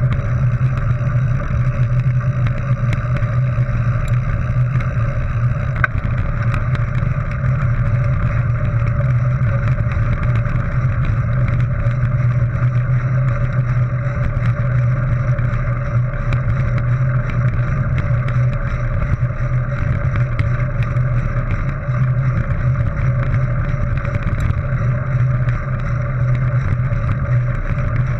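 Steady rumble of wind and tyre noise as a mountain bike rolls along a gravel dirt track, muffled through a GoPro HERO3's waterproof housing.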